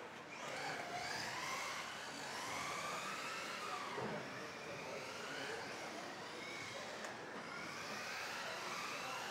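Several electric off-road RC cars of the modified class racing at once: their motors give high whines that rise and fall in pitch as the cars accelerate and brake, overlapping continuously.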